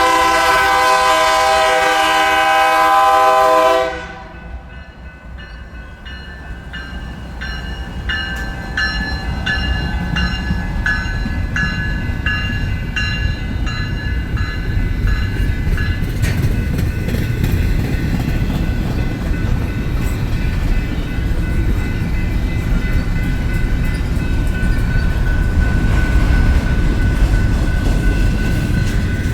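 Air horn of a Canadian Pacific AC4400CWM diesel locomotive sounding a loud multi-note chord that cuts off about four seconds in. Then the passing intermodal and autorack train's low rumble builds and stays loud, with regular clicking of wheels over rail joints and, later, a thin steady high-pitched tone.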